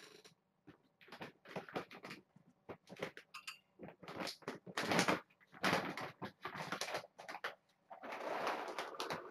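A kitten nosing and pawing right at the microphone: irregular rustles, scuffs and knocks, with a longer stretch of rustling near the end.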